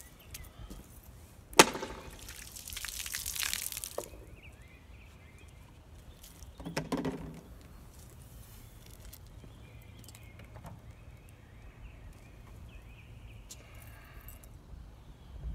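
Cut plastic soda bottle being handled: a sharp knock, then about two seconds of hissing, splashing soda spilling and fizzing. A shorter knock and crinkle of a plastic bottle follows a few seconds later.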